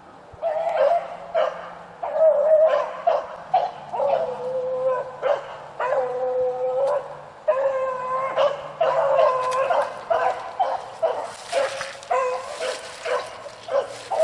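Rabbit hounds baying on a rabbit's trail, a run of drawn-out bawls and shorter yelps, several voices overlapping at different pitches.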